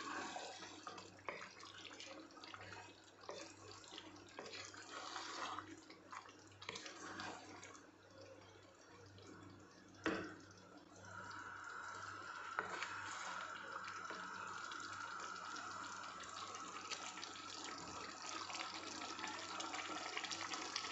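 Thick curry sauce simmering in a pot, with faint bubbling and small pops, and a wooden spoon stirring through it at the start. There is a sharp click about halfway through, and after it a steady faint hiss.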